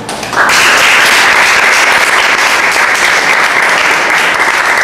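Audience applauding, starting suddenly about half a second in and holding steady and loud.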